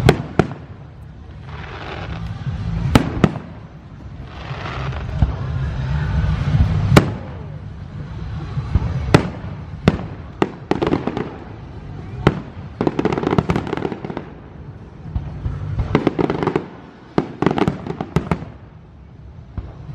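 Aerial fireworks shells bursting overhead: single sharp bangs a few seconds apart, then thick runs of crackling in the second half.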